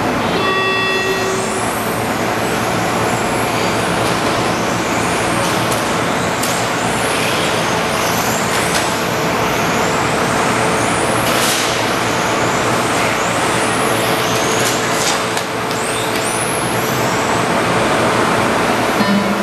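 Several electric RC touring cars racing: brushless motors whining, many overlapping whines rising and falling in pitch as the cars speed up and slow down, over a steady hiss from tyres and drivetrains. A short steady tone sounds right at the start.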